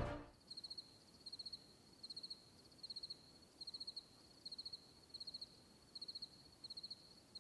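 Cricket chirping faintly: about ten evenly spaced short chirps, a bit more than one a second, each a quick run of several pulses on one high note.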